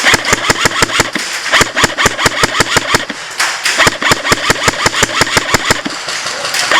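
Airsoft guns firing rapid full-auto bursts: a fast, sharp rattle of shots at about eight a second, almost without a break.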